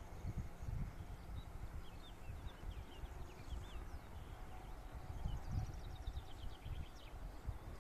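Wind rumbling on the microphone outdoors, with small birds chirping in the background and a quick run of repeated high notes about five seconds in.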